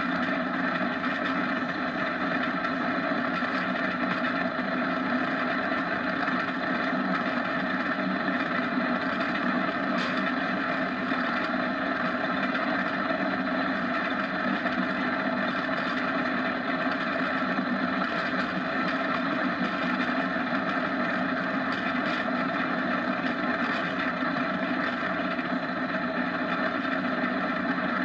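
Steady rushing and droning of a downhill go-kart running fast on asphalt, from wind and the wheels rolling on the road. It keeps an even level with no changes.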